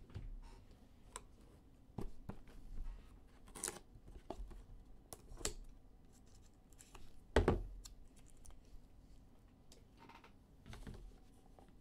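Trading cards and wrappers being handled: scattered short rustles, scrapes and taps with a tearing sound, and a louder thump about seven and a half seconds in.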